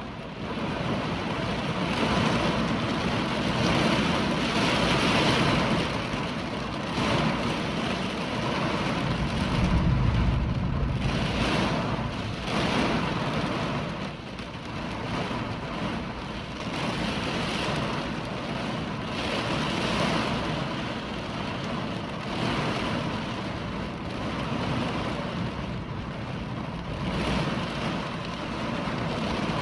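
Hurricane wind and heavy rain, a continuous rushing that gusts louder and eases every few seconds.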